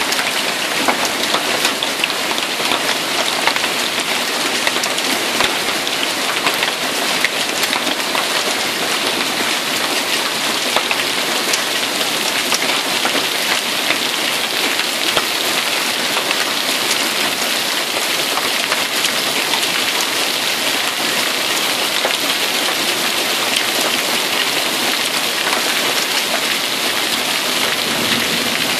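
Hail and heavy rain pelting down in a storm: a dense, steady hiss dotted with many sharp ticks of individual strikes.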